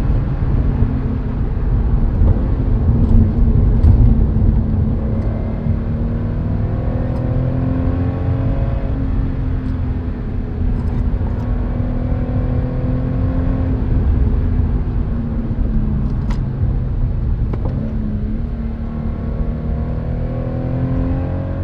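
Subaru BRZ/FR-S/86 2.0-litre flat-four with unequal-length headers and an Invidia Q300 cat-back exhaust, running at a fairly steady engine speed while the car is driven. It gives a steady engine note over a heavy low rumble, with only slight rises and dips in pitch.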